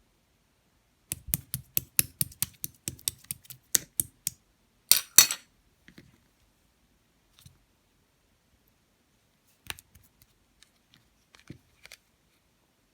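Clear slime being squeezed and worked by hand, giving a quick run of sharp clicks and pops at about four a second, a louder crackle about five seconds in, then a few scattered clicks.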